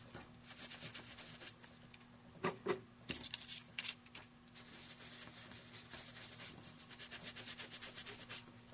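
Ink sponge rapidly dabbing and rubbing ink onto the edges of a die-cut cardstock butterfly: a faint, quick patter of soft taps, with a couple of louder knocks about two and a half to three seconds in.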